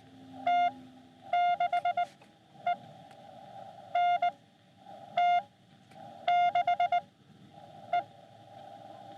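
Received Morse code (CW) from a Xiegu X6100 ham radio transceiver's speaker: a single mid-pitched tone keyed in dots and dashes over steady filtered receiver hiss. The letters read N, T, 6, E, so the other station is sending its call sign NT6E, which is sent again in the second half.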